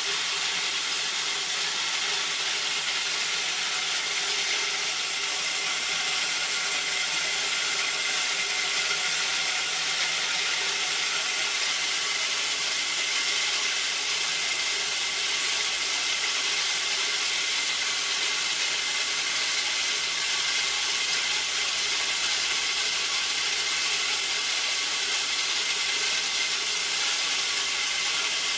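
A180 corn mill with a 2.2 kW electric motor running steadily, cracking dried corn kernels between its 180 mm grinding discs: an unbroken hissing rush with a faint steady whine.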